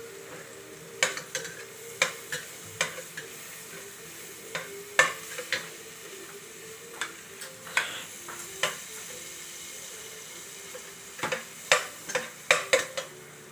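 Chopped onion and garlic sautéing in a pan, giving a steady sizzle. A utensil stirring the pan clicks and knocks against it every second or so, with a quick run of several knocks near the end.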